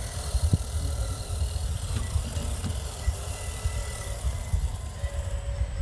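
Small electric motors and gearing of RC scale hydraulic construction models running, with faint steady whines over an uneven low rumble. A high hiss stops near the end.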